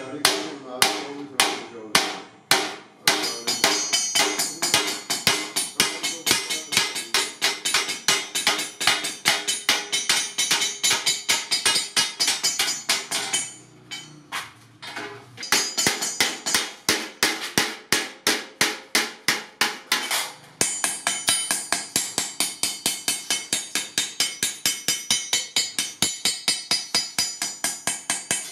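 Hand hammer beating a rolled sheet-iron milk-can body over a steel bar: rapid ringing metallic blows, about four a second, with a short pause about halfway through.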